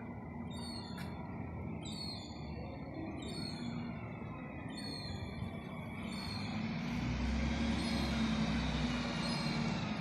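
Street traffic rumbling steadily, swelling louder from about seven seconds in as a heavy vehicle goes by. Short, high chirps from small birds repeat about once a second over it in the first half.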